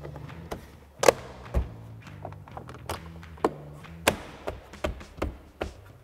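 Plastic door-panel trim pieces on a Ford F-150 door being pressed and tapped into place: a series of sharp clicks and knocks as the clips seat, the loudest about a second in, over soft background music.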